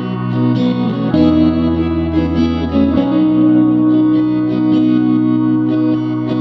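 Background music: a guitar with effects playing sustained chords over a bass line.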